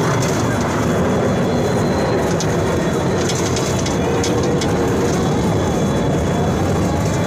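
Amusement-park monorail car running along its track, heard from on board as a steady rumble, with a few light clicks about three to four seconds in.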